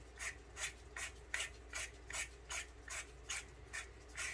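Handle section of a metal lightsaber hilt being screwed back on by hand: a short scraping rasp with each twist, about two to three a second.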